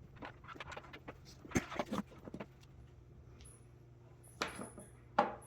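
Scattered light clicks and knocks of parts and tools being handled on a workbench over a faint steady hum, with a cluster of knocks about a second and a half in and two sharper knocks near the end.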